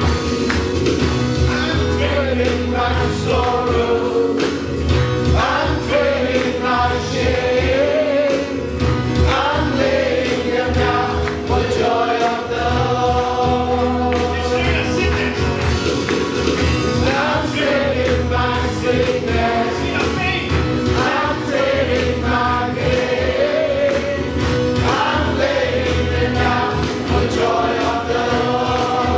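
Live gospel worship music: a male lead singer with a choir singing over keyboard and electric and acoustic guitars, with a steady beat.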